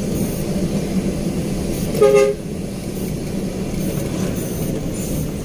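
Steady engine and road drone heard from inside a moving truck's cab, with one short horn toot about two seconds in.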